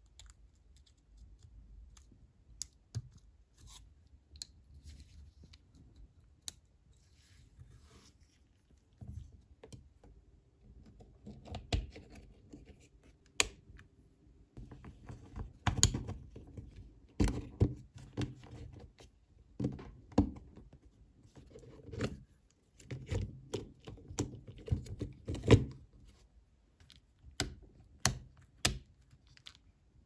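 Hands fitting the plastic parts and wiring of an electric screwdriver's housing together: scattered sharp plastic clicks and knocks over rubbing handling noise, sparse at first and much busier in the second half.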